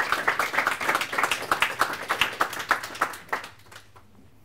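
Audience applauding, the claps thinning and dying away about three and a half seconds in.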